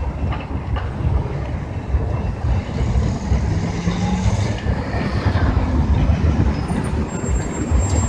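Diesel commuter train standing at the station with its engine running: a steady low rumble that swells and fades.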